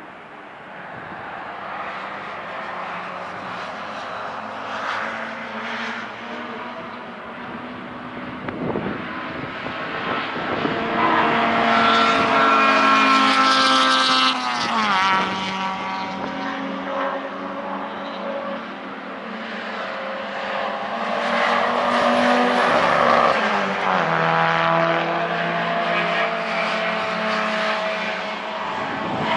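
Racing cars' engines on a circuit, passing one after another. Each grows louder to a peak and drops in pitch as it goes by, the two loudest passes about halfway through and again later on.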